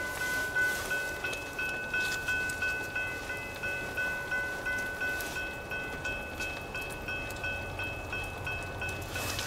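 Railroad grade crossing bells ringing in a steady rhythm, about three strikes a second, with two bells overlapping.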